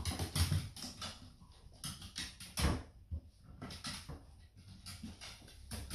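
A dog's claws clicking and scrabbling on timber floorboards as it jumps and moves about, an irregular run of taps with a louder knock about two and a half seconds in.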